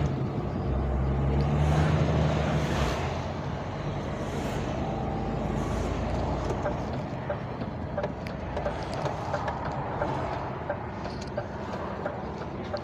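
Lorry's diesel engine and road noise heard inside the cab as the truck drives. The engine is louder for the first three seconds or so, then settles to a steadier running noise with a few light clicks in the second half.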